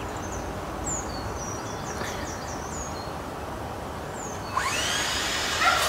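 Liquid fish emulsion fertilizer poured from a plastic jug into a bucket of water: a steady splashing that grows louder about three-quarters of the way through. Small birds chirp with short, high, falling notes.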